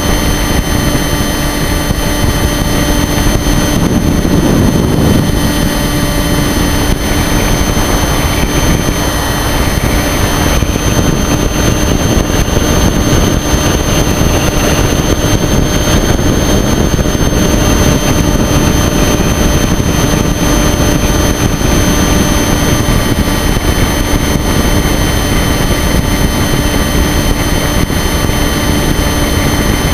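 Model airplane's motor and propeller running steadily in flight, a constant droning whine with a dense rush of air over the microphone on board. The pitch and level hold nearly even throughout.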